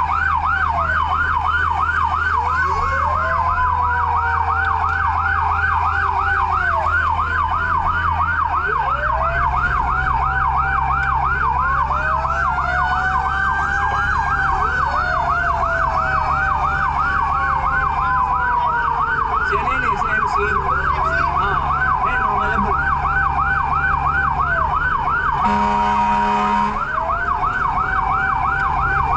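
Fire truck siren in a rapid yelp, with slower wailing sirens of other emergency vehicles overlapping it and a vehicle engine running underneath. About a second-long horn blast sounds near the end.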